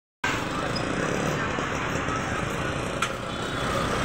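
Busy street traffic: motorcycle and scooter engines running and passing, with people talking in the background. A single sharp click about three seconds in.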